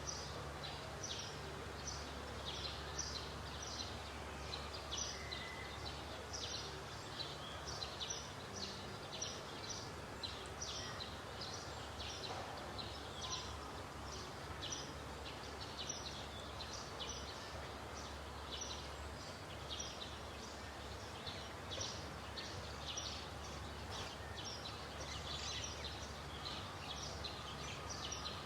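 Small birds chirping rapidly and irregularly, many short high calls a second, over a steady low hum of background noise.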